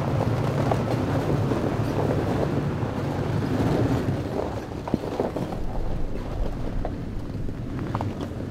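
Pickup truck carrying a camper driving slowly across a snowy parking lot: a low, steady engine hum with tyres crackling over packed snow and ice, and a few small clicks.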